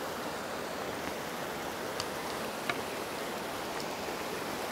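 Small mountain stream running steadily over rocks and small cascades, with a couple of faint ticks about two and two and a half seconds in.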